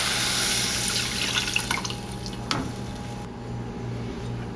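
Almond milk pouring from a glass measuring cup into a saucepan of roux, the stream tapering off within the first second or so. Then a spoon clicks and scrapes a few times against the pan as the milk is stirred in.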